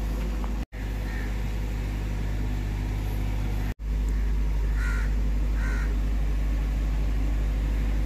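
Steady low mechanical hum, with a few short calls over it about one, five and six seconds in.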